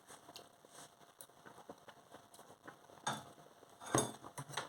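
Faint small clicks and ticks, then a few louder short sounds about three and four seconds in, as soup is tasted from a spoon.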